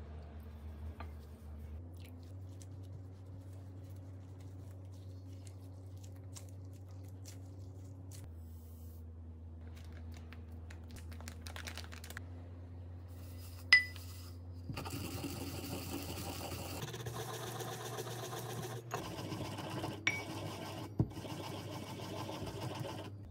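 Sesame seeds and brown sugar being ground with a pestle in a ceramic mortar bowl: a gritty, rapid scraping that starts about two-thirds of the way through, just after a sharp clink on the ceramic. Before it there are only faint small clicks of chopsticks stirring and sugar being poured.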